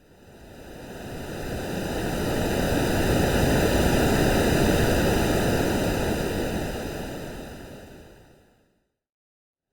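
Artificial, AI-made ocean-wave sound: one slow swell of surf-like noise rising out of silence, peaking midway and fading away to silence near the end.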